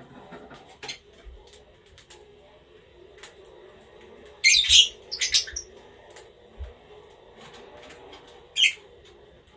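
Small pet parrots in an aviary giving a few short, shrill squawks, the loudest about four and a half seconds in and another near the end, among scattered light clicks.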